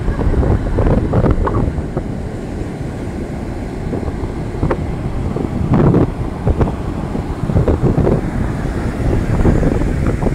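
Strong sea wind buffeting the microphone: a dense low rumble that swells in gusts, strongest about halfway through.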